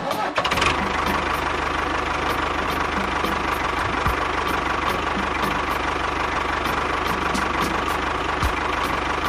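A small engine idling steadily with a fast, even knocking beat; it cuts in suddenly at the start and fades out at the very end.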